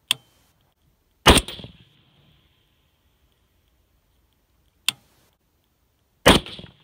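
Palmetto State Armory AR-15 in .223 with a Miculek muzzle brake firing two shots about five seconds apart, each a loud crack with a short trailing echo. A shorter, sharp crack comes about a second before each shot.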